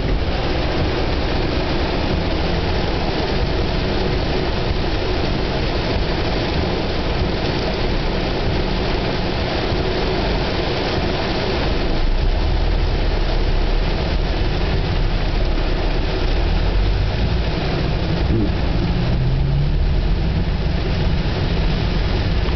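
Heavy rain beating on a car's roof and windows, heard from inside the cab over a steady low rumble of the car. The rain grows louder about halfway through.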